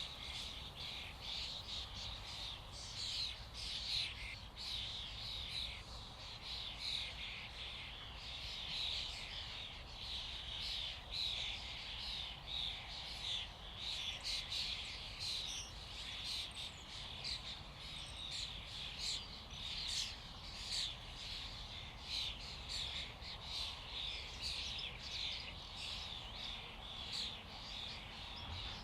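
A flock of common starlings calling together: a dense, continuous chatter of many overlapping clicks, whistles and harsh notes.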